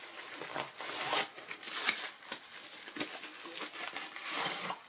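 Plastic packaging bag crinkling and rustling in irregular bursts as a wrapped accessory is handled and unwrapped, with a light tap about three seconds in.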